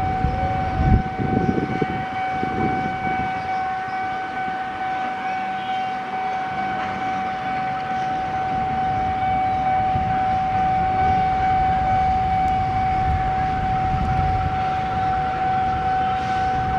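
Low, steady rumble of GE CC201 diesel-electric locomotives running, under a steady, unbroken high-pitched tone.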